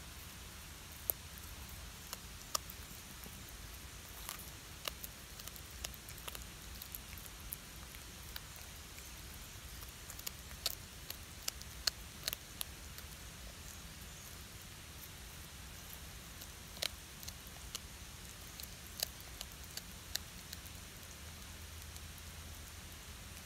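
Calico cat chewing a whole river fish: irregular sharp crunches, some single, some in quick clusters, as its teeth work through the fish, over a faint low rumble.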